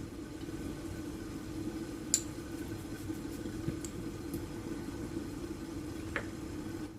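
Steady low mechanical hum from a running kitchen appliance, with a couple of light clicks from a utensil against the pan, about two seconds in and again near the end.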